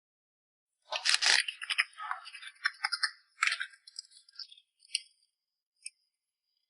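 A burst of rattling and clinking starting about a second in and lasting a couple of seconds, thinning out into a few scattered clicks.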